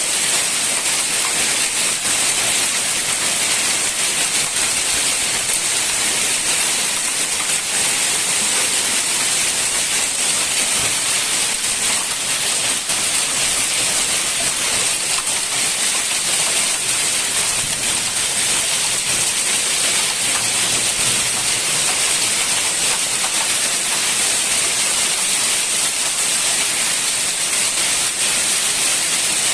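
Heavy downpour of rain mixed with hail, a steady dense hiss that does not let up.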